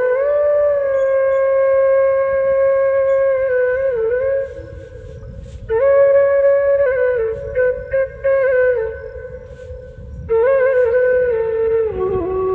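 Background music: a flute plays a slow melody of long held notes with small bends and ornaments, in three phrases with short pauses between them.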